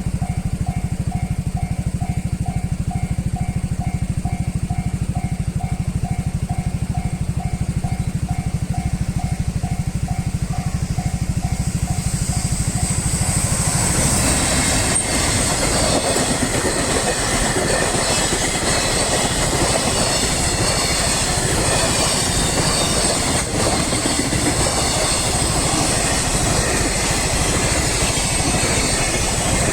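Japanese level-crossing warning bell ringing in a rapid, even beat over the low rumble of a passing train. From about twelve seconds in the train noise grows into a broad rail clatter with a high steady whine that drowns the bell.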